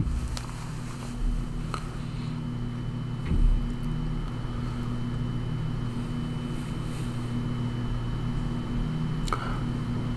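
Steady low electrical hum with a faint high whine, broken by a few soft clicks.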